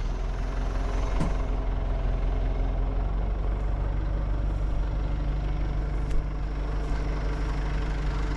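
Backhoe engine running steadily, a low, even hum whose tone shifts slightly about three and a half seconds in.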